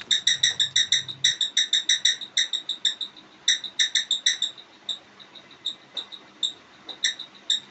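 Brand-new ceiling fan making a faulty noise: a run of high-pitched chirps, about five or six a second, which slow down and thin out after a faint low hum cuts off about a second in.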